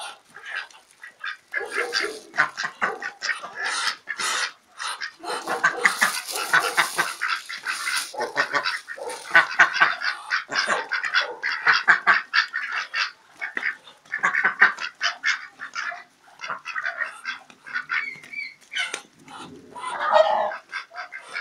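A flock of domestic ducks quacking in a busy, continuous chorus of rapid overlapping calls, excited by being hand-fed.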